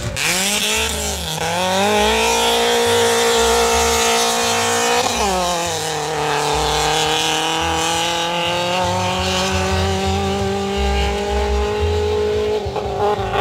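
Rally car engine revving hard, its pitch dipping and recovering early, dropping sharply about five seconds in as it lifts or shifts, then climbing slowly as it pulls again. Wind buffets the microphone.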